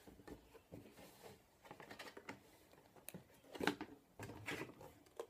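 Faint handling noises from an empty cardboard headset box being turned over in the hands: scattered light taps and rustles, with a slightly louder knock about three and a half seconds in.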